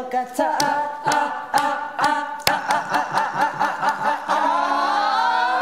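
Several young men singing together a cappella, with sharp beats marking the rhythm; near the end the voices hold long notes and slide upward together.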